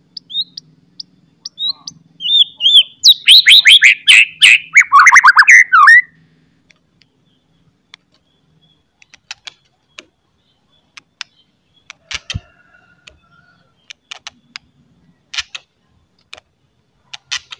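White-rumped shama singing: a few short high notes, then, from about two seconds in, a loud fast run of notes falling in pitch that lasts about four seconds. After that come only scattered short clicks and chips.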